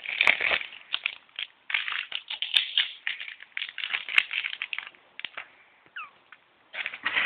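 Loose, wobbly screws rattling in their fitting: an irregular run of clicks and rattles, with a brief squeak near the end.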